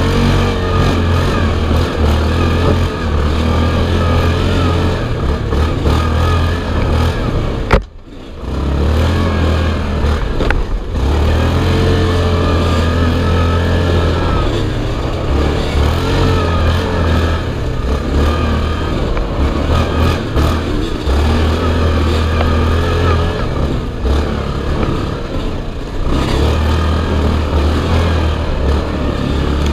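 Sport ATV engine running hard on a dirt trail, its pitch rising and falling with the throttle. About eight seconds in there is a sharp knock, and the engine sound drops away for a moment before it picks up again.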